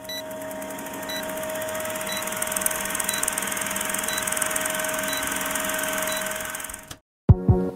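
Old-film countdown sound effect: a steady film-projector whirr with hiss and crackle and a short high beep once a second, cutting off suddenly about seven seconds in. Music starts with a loud hit just after.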